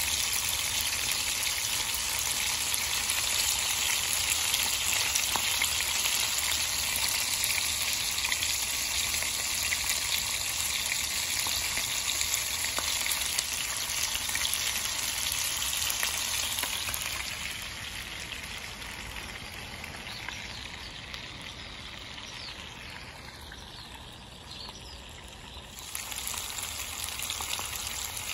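Hot oil sizzling steadily as two whole croaker fish pan-fry. The sizzle turns quieter about seventeen seconds in and comes back up near the end.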